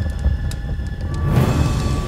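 Dramatic film score over a low, steady rumble, with a rush of noise swelling up about a second and a half in.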